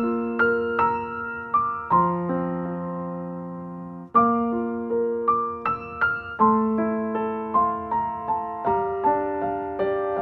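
Background music: a slow, gentle piano piece, soft chords struck and left to ring, changing every second or two.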